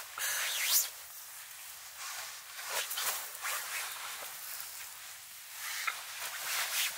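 A run of soft rustling and swishing sounds, one after another, the sharpest just under a second in.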